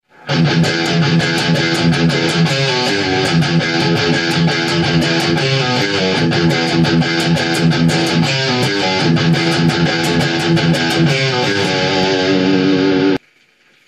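Gibson Les Paul Studio electric guitar played through the overdrive channel of a Marshall MG 15 FX practice amp, heard through a phone's microphone: a distorted riff with steady pick strokes that cuts off abruptly near the end.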